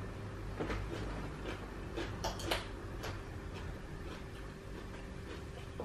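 Eating and handling a seafood boil: scattered clicks and small crackles from a fork and fingers picking at crab and from chewing, with a cluster of sharper clicks a little over two seconds in, over a steady low hum.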